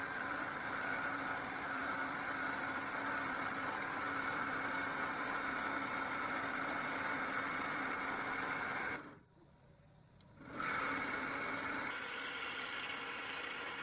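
Steady whir of a woodworking power tool running, dropping out abruptly for about a second and a half past the middle before resuming.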